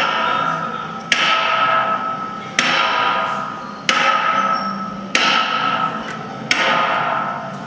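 Repeated sharp strikes, one about every second and a quarter, each followed by a ringing tail that fades out before the next.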